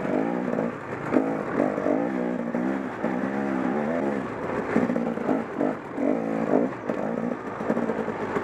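KTM 300 XC-W's single-cylinder two-stroke engine being ridden off-road, its pitch rising and falling again and again with constant throttle changes.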